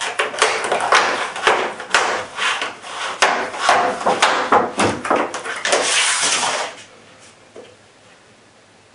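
Stiff clear plastic clamshell packaging crackling and snapping irregularly as it is pulled apart and a rubber-overmolded rifle stock is slid out of it. The handling stops about seven seconds in.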